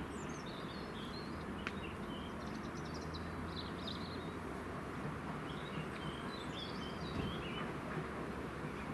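Songbirds singing in short, high twittering phrases, three times, over a steady low rumble from a distant steam-hauled train.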